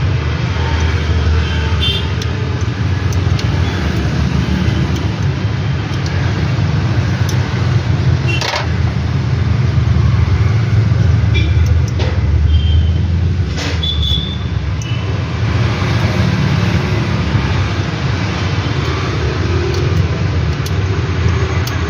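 Bajaj Maxima auto rickshaw engine running steadily, with two sharp knocks, one about eight seconds in and another about fourteen seconds in.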